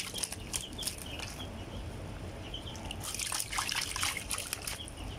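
Shallow tank water sloshing, splashing and trickling as a hand stirs through a net of angelfish. The splashes come irregularly, busier about three seconds in.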